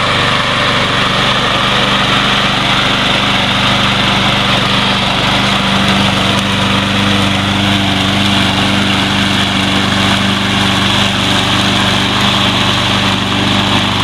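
Troy-Bilt TB230 lawn mower's small gasoline engine running steadily at a constant speed.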